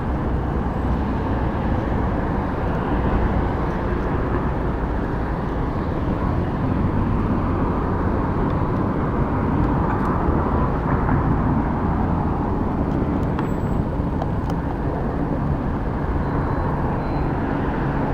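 Small engine of a motorized bicycle running steadily while the bike is ridden.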